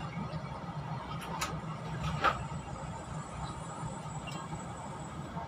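Steady low hum inside a stationary Chu-Kuang express passenger carriage, with two short squeaks, one a little over a second in and a louder one about two seconds in.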